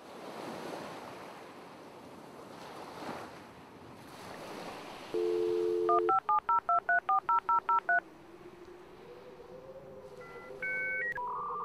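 A telephone dial tone comes in about five seconds in, then a quick run of about a dozen touch-tone keypad beeps as a number is dialed. A soft, swelling wash of noise comes before it. A faint low tone and a few two-tone electronic beeps follow near the end.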